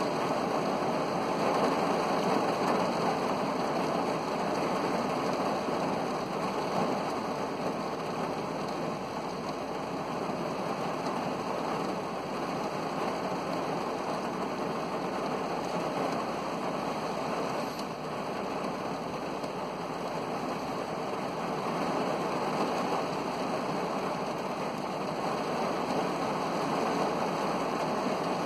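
Heavy rain falling on a car, heard from inside the car: a dense, steady hiss of drops that barely changes in level.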